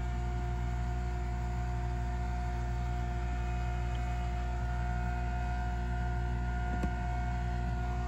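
Steady machine hum made of several constant tones that never change in pitch or level, with one faint click about seven seconds in.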